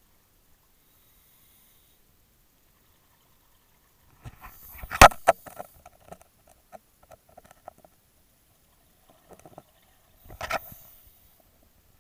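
Scuba diver's exhaled breath bubbling out of the regulator in two bursts, about four seconds in and again near the end, with scattered bubbly clicks and gurgles between them.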